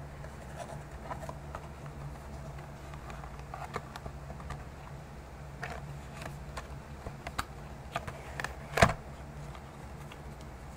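Hands handling a Tarokka deck's card box: scattered light clicks and taps, with one sharper, louder knock near the end, over a steady low hum.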